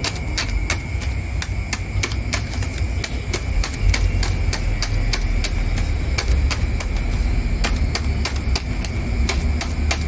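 Scissor points stabbing repeatedly into a block of ice in a plastic bag to crack it: sharp, irregular knocks at about three a second, over a steady low rumble.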